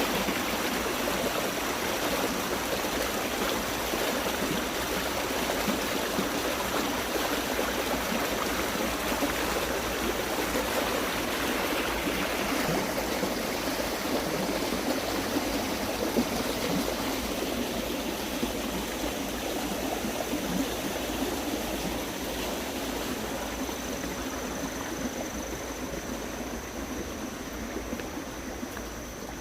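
Steady rushing water from heavy monsoon rain, easing slightly near the end.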